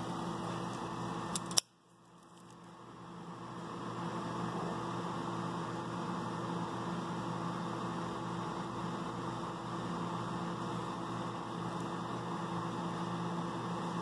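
Steady fan-and-mains hum of a powered-on Biotage Initiator microwave synthesizer standing idle. A sharp click about a second and a half in is followed by the sound cutting out and rising back over the next two seconds.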